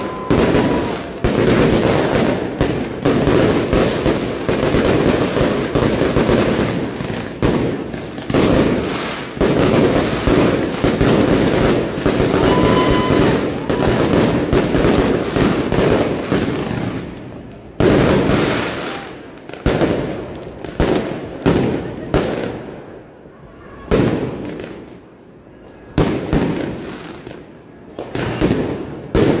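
Fireworks going off overhead: a dense, near-continuous crackle of bangs for about the first seventeen seconds, then separate bangs every second or so with short lulls between them.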